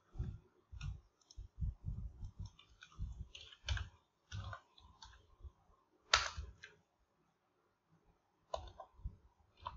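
Computer keyboard typing and mouse clicks: a quick run of keystrokes and clicks over the first few seconds, one louder click a little after six seconds, then a pause and a few more clicks near the end.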